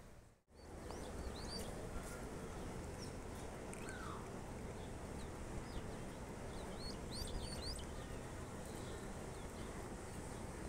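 Open-air ambience: a steady background hiss with many short, high chirps from small birds, thickest about seven seconds in. A brief dropout about half a second in.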